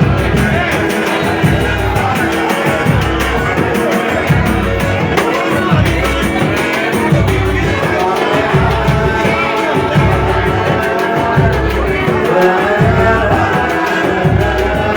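Band music with a heavy bass beat pulsing about twice a second, with singing over it.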